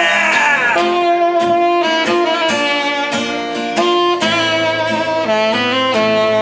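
Live acoustic band playing an instrumental break: strummed acoustic guitar under a bowed violin melody of held notes.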